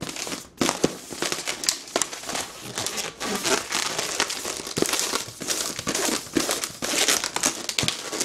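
Inflated long latex twisting balloon rubbing and squeaking under the hands as it is twisted into loops. There is a continuous rustle with many short squeaks and clicks.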